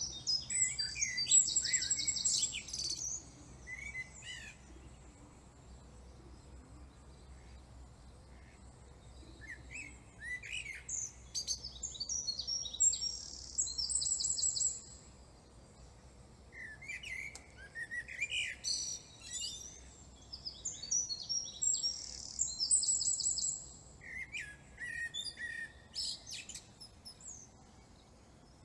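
Songbird singing in phrases of rapid high chirps and trills, with pauses of a few seconds between phrases.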